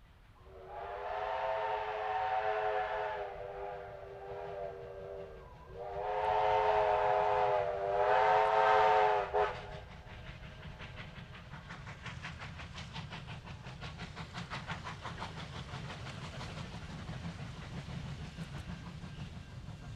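Two long blasts on a steam locomotive whistle, the second louder, then the fast regular exhaust beats of double-headed 2-8-0 Consolidation steam locomotives working as they approach, over a low rumble.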